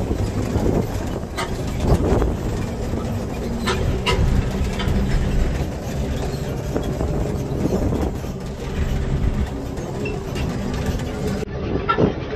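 Open-sided tour vehicle driving over a rough track: a steady low engine and road rumble with a few steady low tones, and scattered short knocks and rattles from the body.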